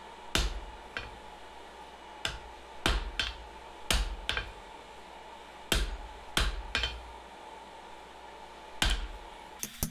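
Hammer blows on hot spring steel on an anvil, drawing out a tang: about ten sharp strikes at an uneven pace, some in quick pairs. A steady hum runs underneath.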